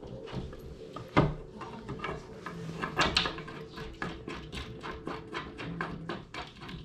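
Light clicks and taps of bolts being threaded by hand into metal threaded inserts in the edge of a crib panel, with a sharper knock about a second in and another near three seconds, then a quicker run of small clicks.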